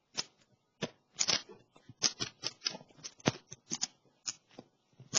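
A quick, irregular run of sharp clicks and taps, about fifteen in five seconds, starting just after a silence.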